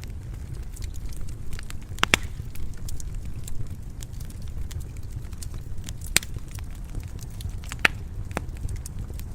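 Wood fire crackling in a fireplace: a steady low rumble of flames with scattered small ticks and sharp pops. The loudest pops come as a quick pair about two seconds in, with single ones near six and eight seconds.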